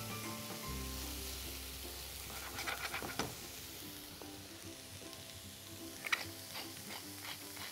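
Fennel wedges sizzling in a frying pan as they are flipped and the pan is tossed, with a few clicks and scrapes about three seconds in and again near the end. Soft background music plays throughout.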